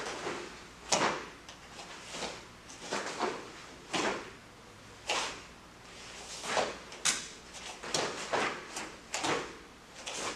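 Sharp swishes and snaps of a taekwondo uniform with the fast blocks, strikes and kicks of a form, about one a second, with bare feet stepping on foam mats.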